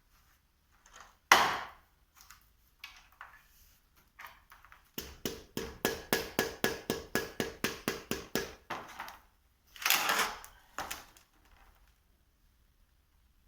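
Metal workshop clatter: a sharp knock, then a quick run of about twenty even metallic taps, some five a second, each with a ringing tone, then a scraping clatter near the end.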